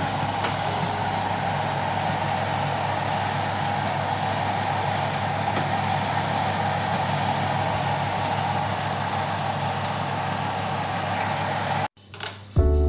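Steady whirring of a fan-forced oven's convection fan running while the cake bakes. It cuts off suddenly about twelve seconds in, and music starts just before the end.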